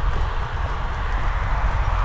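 Steady rain hissing, with footsteps on wet pavement clicking faintly about twice a second.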